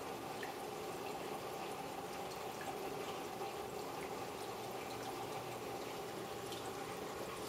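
Turtle tank water bubbling and trickling steadily, with scattered small drips and a faint low hum underneath.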